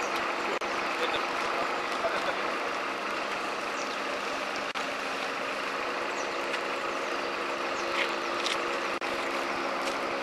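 Crane truck's engine running steadily with an even hum. A few light clicks near the end as the lifting straps are handled.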